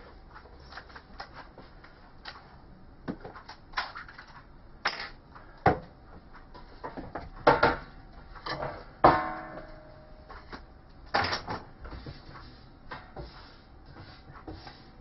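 Scattered knocks, taps and clatter of handling: a freshly drilled number plate and tools being lifted and set down on a metal drawer trolley. One clank about nine seconds in leaves a short ring.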